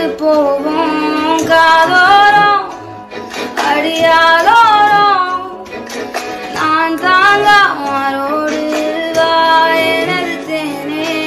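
A Tamil song with a woman singing over instrumental accompaniment.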